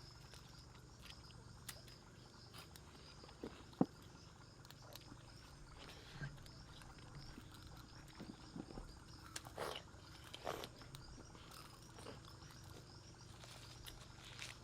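Faint rainforest ambience: a steady high insect drone, with one sharp click about four seconds in and a few soft knocks near the middle.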